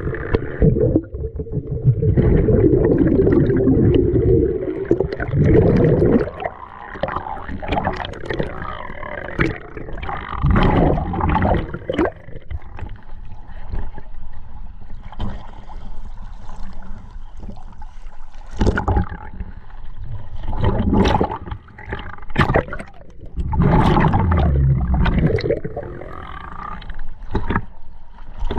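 Scuba diver breathing underwater through a regulator: loud bubbling, gurgling exhalations recur every few seconds, with crackling bubble sounds between breaths.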